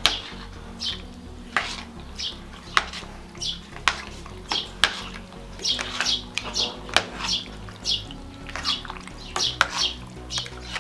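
Metal ladle stirring chopped okroshka in a stainless steel pot, clinking and scraping against the pot's sides in short, irregular knocks.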